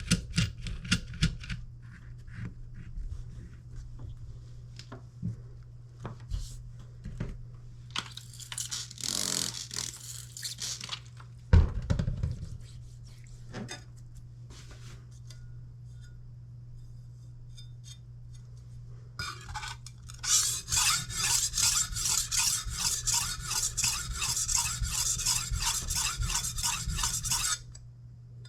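A knife blade being stroked back and forth on a sharpening stone, a fast even rhythm of about three to four scraping strokes a second in the last part. Earlier there are scattered clicks, a short rub and one loud knock, over a steady low hum.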